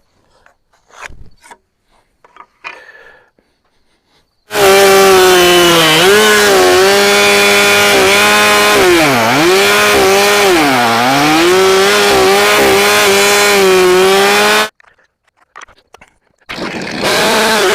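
Small gas engine of a portable band sawmill running at high revs while the blade cuts oak. It starts suddenly after a few faint knocks, its pitch sags sharply twice as it bogs under the load, and it stops abruptly. A little before the end it starts running again.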